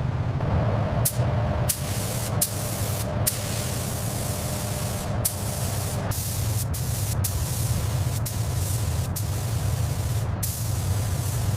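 Compressed air hissing from an air spray tool in long bursts, cut off briefly several times as the trigger is let go, over a steady low hum.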